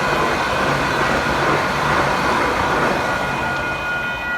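Capital Line light-rail train passing through a level crossing: loud, steady rolling noise, with several steady high-pitched tones over it.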